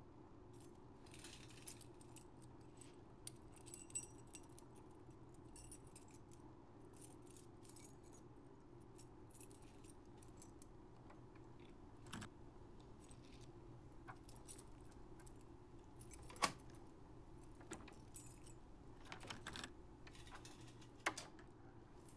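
Quiet jingling of keys and small metallic clicks at a door's lock and knob, over a low steady hum. A sharper click stands out about two-thirds of the way through, and another comes near the end.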